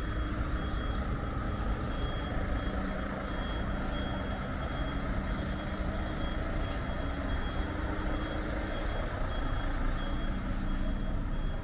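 A vehicle's reversing alarm beeping at a steady, regular pace, over the steady low rumble of an engine running.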